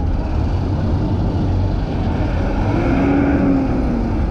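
City street traffic, with a bus engine running close by in the lane alongside. A pitched engine tone comes up about halfway through and sinks slightly near the end.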